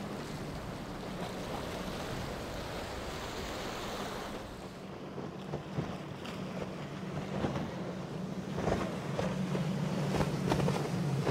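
A bank of Mercury outboards on a high-performance centre-console running at speed, a steady low drone under the rush of water and wind. About halfway through it changes to a second boat with five Mercury 350 outboards, whose drone is stronger, with splashes and slaps of the hull on the chop.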